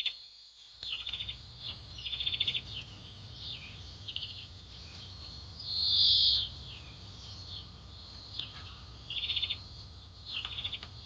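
Bird chirping in short, fast-trilled bursts every second or so, one louder call about six seconds in, over a low steady rumble that begins about a second in.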